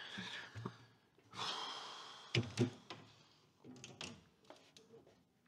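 Light clicks and knocks from a metal-framed ceiling access hatch door being handled and pushed into its frame, with a long breath, a sigh, about a second in.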